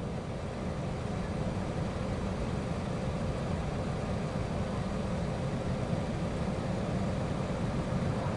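Diesel locomotives of an approaching BNSF freight train, a steady low rumble from the engines that holds level throughout.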